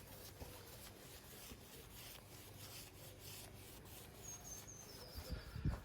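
Faint repeated rubbing strokes of a paintbrush being worked along a fascia board, with a bird chirping briefly in the background and a few soft knocks near the end.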